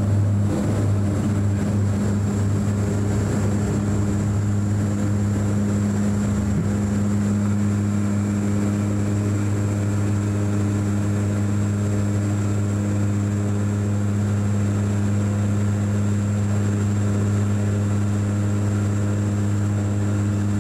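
Cabin sound of a De Havilland Canada Dash 8 Q400 turboprop climbing out at takeoff power: the propellers' steady, deep drone, a strong low hum with a ladder of overtones, under a thin high whine and a rushing hiss.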